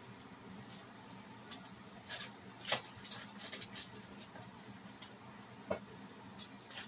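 Aluminium foil crinkling and rustling as it is unfolded from a flattened piece of fried plantain, with a couple of sharp clicks from metal kitchen tongs, one about three seconds in and one near the end.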